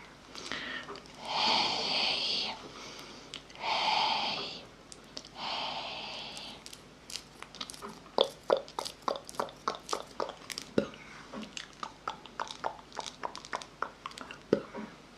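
ASMR mouth sounds close to the microphone: three breathy hisses in the first seven seconds, then a run of sharp, crunchy clicks, a few a second, to the end.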